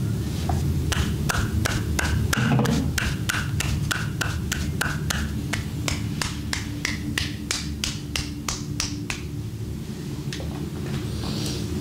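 Hands slapping or tapping on skin in a quick, even rhythm of massage strokes, about three a second, stopping about nine seconds in, over a steady low rumble.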